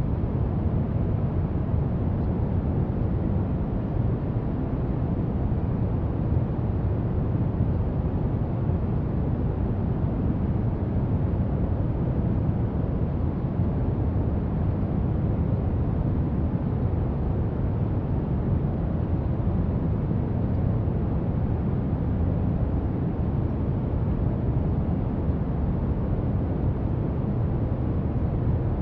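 Steady brown noise: an even, deep hiss with most of its energy low down.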